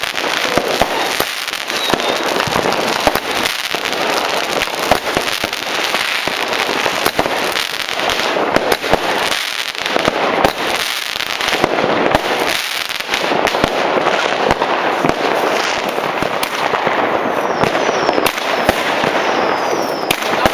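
Many fireworks and firecrackers going off at once: a continuous barrage of bangs and crackling with no pause. A few short whistles falling in pitch come near the end.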